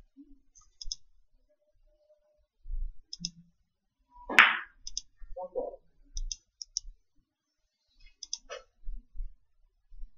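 Carom billiard balls and cue clicking as a shot is played: a string of short, sharp clicks, the loudest about four and a half seconds in.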